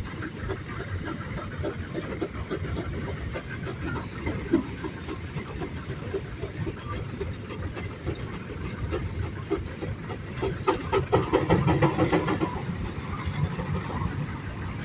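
Steam show machinery running, with a quick, even clatter for about two seconds near the middle.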